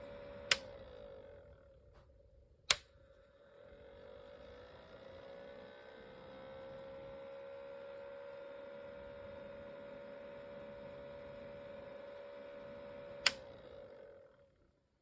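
Small ultrasonic humidifier running with a faint, steady hum. The hum dips away about two seconds in, comes back a few seconds later with its pitch gliding slightly upward, and fades out near the end. Three sharp clicks are the loudest sounds: one about half a second in, one near three seconds, and one near the end.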